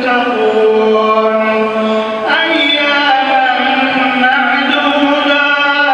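A solo man chanting Quran recitation in Arabic, sung in long, drawn-out melodic phrases, rising to a higher note about two seconds in.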